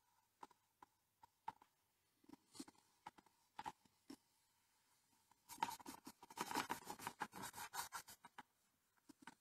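Paintbrush working paint onto a painting on an easel: a few light taps and short strokes, then about three seconds of quick, dense scratchy scrubbing past the middle.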